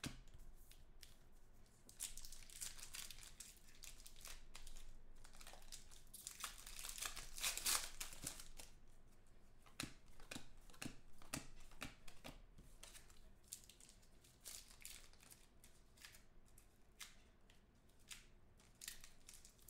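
Faint rustling and crinkling of trading cards being sorted by hand and a foil card-pack wrapper being handled, with scattered light clicks of cards sliding against each other.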